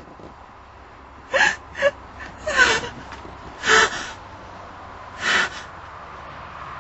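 A person sobbing: short gasping, whimpering breaths, five of them spaced a second or so apart.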